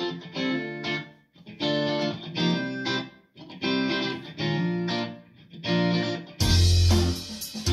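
Guitar music played through a pair of DCM TP160S-CH bookshelf speakers: a run of separate guitar chords, each struck and left to ring. About six and a half seconds in, a louder full-band section with heavy bass comes in.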